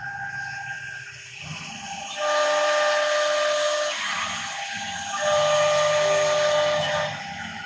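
Blue Elephant 1325 CNC router running: a steady hiss from the spindle over a low hum, and twice a louder whine of several steady tones, about two seconds each, as the spindle head travels across the table.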